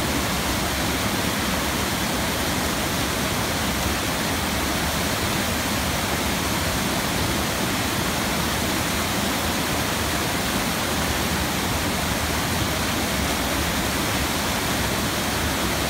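Gürleyik waterfall pouring over stepped rock ledges: a loud, steady rush of cascading water close to the microphone.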